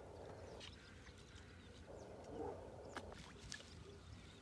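Faint open-air ambience beside a pond, with distant animal calls and a few light clicks.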